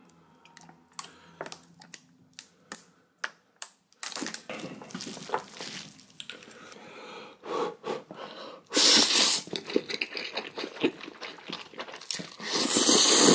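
A person eating instant noodles. At first there are only a few light clicks, then steady wet chewing and mixing, with two loud noodle slurps, one just past the middle and one at the end.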